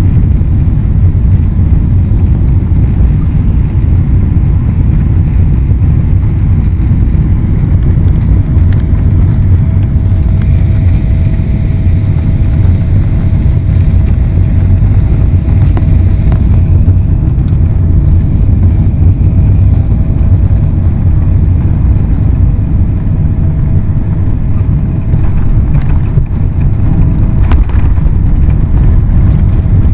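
Jet airliner cabin noise on final approach and landing: a loud, steady low rumble of engines and airflow, with a faint steady whine from about eight seconds in until near the end. The aircraft touches down on the runway partway through.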